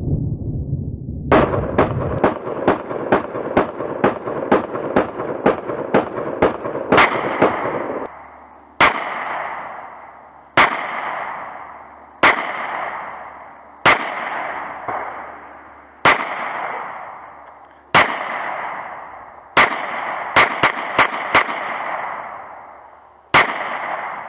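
Beretta Px4 9mm pistol firing. A fast string of about fourteen shots comes first, then slower single shots about every two seconds, with a quick group of three near the end. Each shot has a sharp crack followed by a long echo that dies away slowly.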